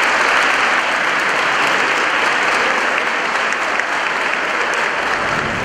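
Large crowd applauding steadily, many hands clapping at once, easing slightly near the end.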